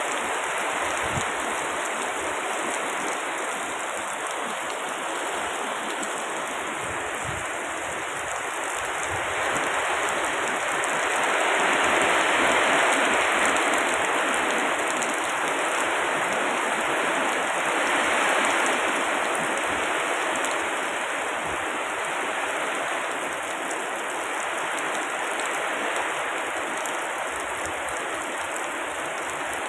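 Steady rain falling on surfaces, swelling louder twice near the middle before easing back.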